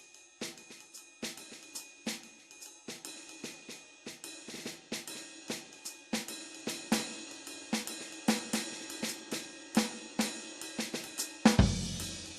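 Alesis Command Mesh Kit electronic drums played in a steady groove of quick strokes on cymbal and drums, about four a second. A heavy low drum hit comes about a second before the end.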